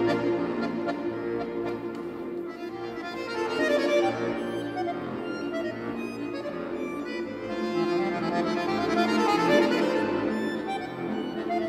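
Solo concert button accordion playing classical music: sustained chords under a moving melody, swelling louder about four seconds in and again near the end.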